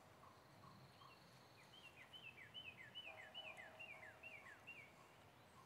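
Faint birdsong: a bird sings a quick run of about eight short whistled notes, each falling in pitch, from about a second and a half in, with a fainter, lower warbling call under it.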